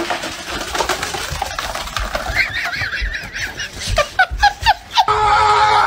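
An animal calling: a noisy scuffle at first, then wavering cries about two seconds in, a quick run of short calls about four a second, and one longer held call near the end.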